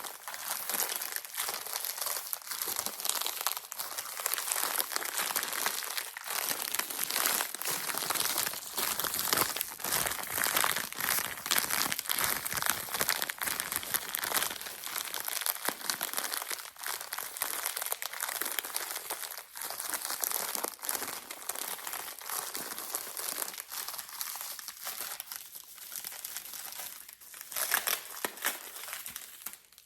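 Bubble wrap being crinkled and handled, a dense continuous run of crackles and rustles, as it is unwrapped from around a packed item.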